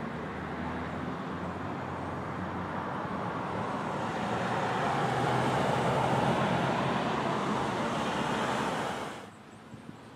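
An SUV driving past on the road: tyre and engine noise that swells to its loudest about six seconds in as it passes close by, then cuts off suddenly about nine seconds in.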